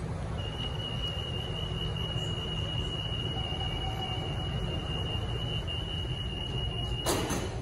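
MRT door-closing warning tone from the platform screen doors and train doors: one steady high-pitched tone lasting about six and a half seconds while the doors close, over a low hum of station and train equipment. As the tone stops, a short, loud burst of hissing noise follows.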